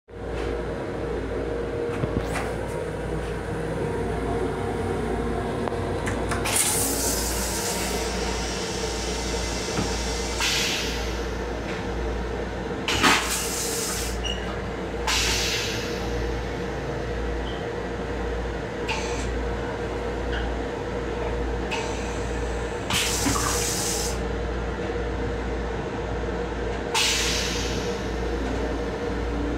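Railcar toilet flushing, water rushing into the stainless-steel bowl in several short bursts of about a second each, over the steady rumble and hum of the moving train.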